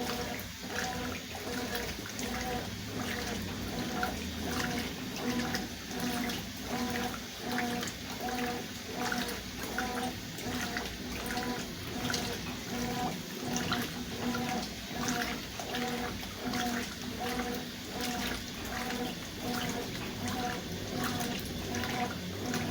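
Consul CWS 12 top-loading washing machine agitating a load of sheets and towels: the motor hum swells and falls with each stroke of the agitator, about one and a half strokes a second, over water sloshing in the tub.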